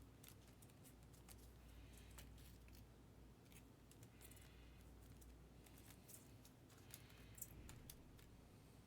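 Near silence with faint, scattered clicks and soft rustles of foil-wrapped trading card packs being handled.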